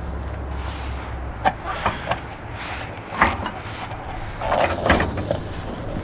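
A handful of uneven metal knocks and clunks as a replacement condenser fan motor is handled and seated in its mounting bracket.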